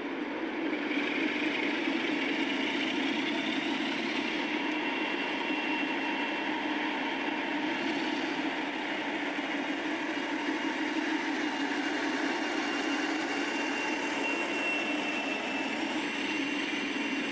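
Diesel locomotive engine idling: a steady, unbroken drone with a faint high whine above it.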